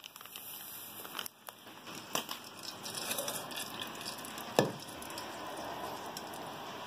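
Hot melted animal fat sizzling and crackling in a pot, foaming after baking soda is added: a steady hiss with scattered pops. A single sharp click about four and a half seconds in.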